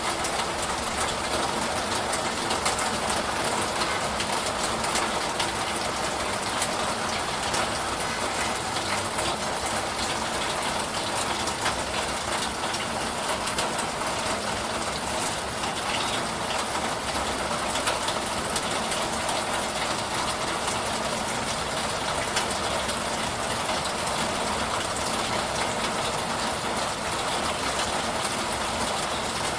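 Steady rain falling, an even hiss speckled with many small drop ticks.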